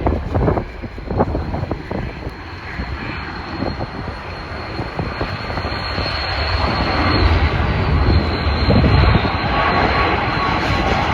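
Jet airliner's engines, growing louder as the plane approaches, with a steady high whine over a broad rumble. Wind buffets the microphone at first.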